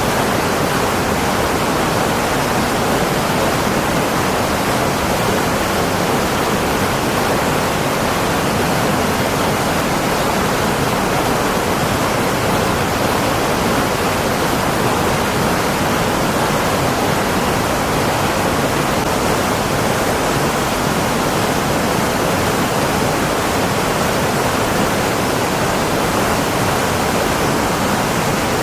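A steady, unchanging rushing hiss of noise with no breaks or separate events.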